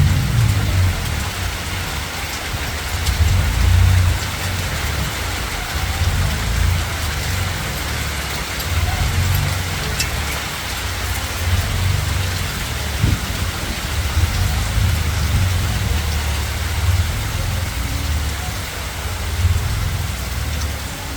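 Hail and rain falling steadily on surfaces, a dense even hiss with a few sharp ticks of individual stones, over a loud, uneven low rumble.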